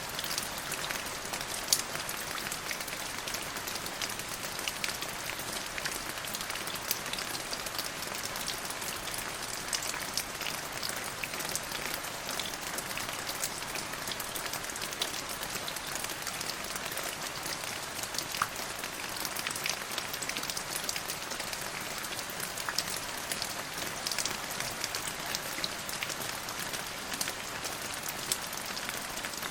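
Steady rain falling on a surface, an even hiss with many small sharp drop ticks scattered through it.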